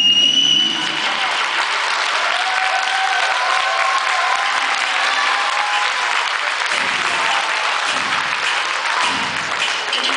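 Audience applauding and cheering, opening with a shrill, steady whistle in the first second.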